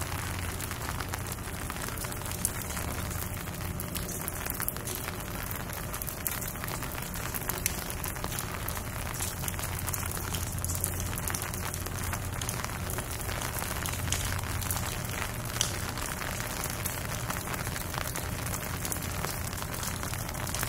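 Steady rain falling on hard surfaces, with a dense scatter of close drop ticks over an even hiss and a low steady hum underneath.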